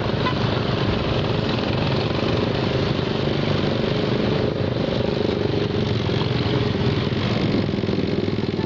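Motorcycle engine running steadily at low speed while riding along a road, with a constant pulsing drone.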